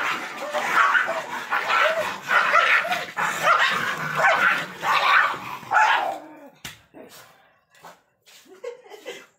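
A dog barking and yelping over and over for about six seconds, then mostly quiet, with a sharp knock and a few faint calls.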